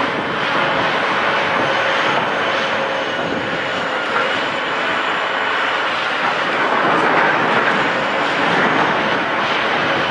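Heavy machinery running steadily at high load: the engine and hydraulics of a demolition shear, with a constant rushing mechanical noise that swells slightly now and then.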